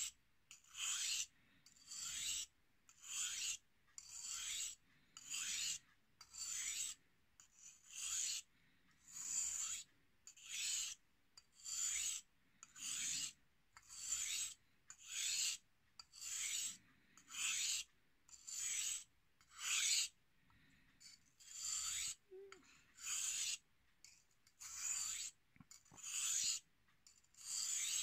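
Carving knife blade drawn across a wet whetstone in edge-trailing, stropping-type polishing strokes. Each stroke gives a short raspy hiss, about one a second.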